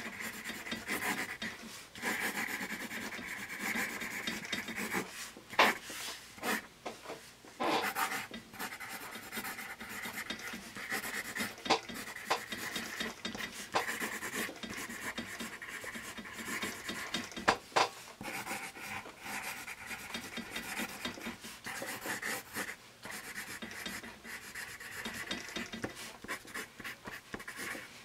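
Paper Mate Mirado Black Warrior #2/HB graphite pencil writing cursive on paper: a steady scratchy rubbing of the lead across the sheet, broken by short pauses and a few sharp ticks.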